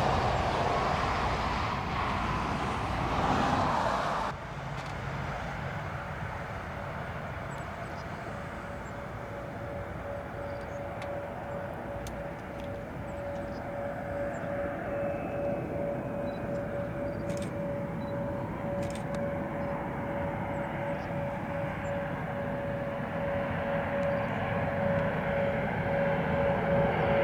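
Fixed-wing aircraft engine noise. A loud rushing sound breaks off abruptly about four seconds in, and a steadier engine sound follows, carrying a steady hum that grows louder toward the end.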